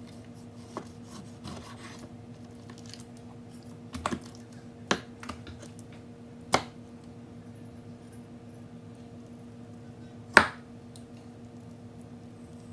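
Chef's knife cutting raw pork belly on a bamboo cutting board: soft slicing with about five sharp knocks as the blade meets or is set down on the wood, the loudest about ten seconds in. A steady low hum runs underneath.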